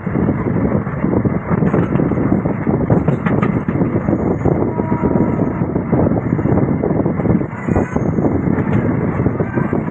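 A passenger express train running at speed, heard from the side of a moving coach: a steady rumble of wheels on rails with a dense rattle.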